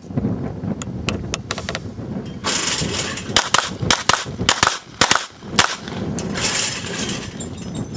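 Handgun shots in a timed rapid-fire string: a few fainter cracks in the first two seconds, then about five louder shots fired quickly between about three and a half and five and a half seconds in.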